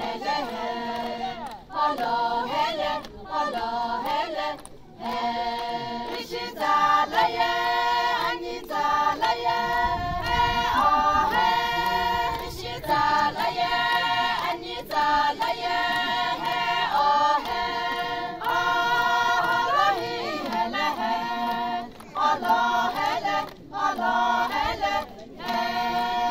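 A group of women singing a traditional Sumi Naga folk song together, in phrases with short breaks between them.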